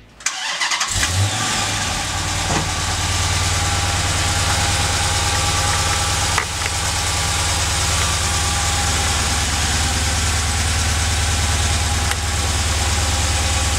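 2011 Dodge Challenger SRT8's 392 (6.4-litre) HEMI V8 starting through its stock exhaust, flaring briefly, then settling into a steady idle.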